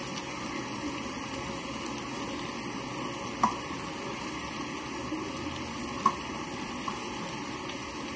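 Mashed potato being scraped out of a steel bowl into a steel kadai of cooked vegetables, over a steady low hiss. Two sharp clinks of the bowl against the pan come about three and a half and six seconds in.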